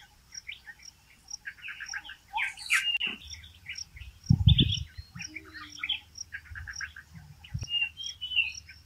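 Many small birds chirping and twittering, over a high tick that repeats about twice a second. A low thump a little over four seconds in is the loudest sound.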